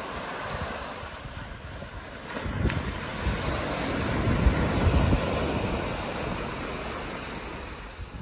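Ocean surf breaking and washing up onto a sandy beach, swelling loudest about halfway through, with wind buffeting the microphone.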